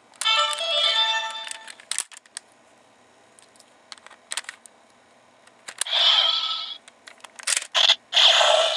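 Gokaiger Mobirates changer toy playing a short electronic jingle through its small speaker as the GaoSilver Ranger Key is inserted. Plastic clicks follow as the key is turned, then two more short electronic sound effects near the end.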